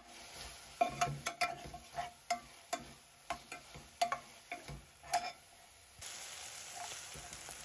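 Metal spoon scraping and clinking against a stainless steel saucepan, each stroke making the pan ring briefly, as chopped spring onions are stirred and sautéed in ghee and oil with a faint sizzle. About six seconds in the sizzling hiss turns louder and steadier.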